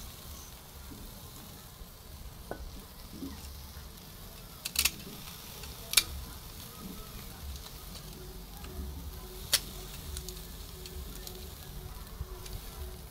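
Beef sizzling over charcoal on a metal grill grate, with three sharp clicks of metal tongs on the meat and grate, the first two about a second apart and the third a few seconds later.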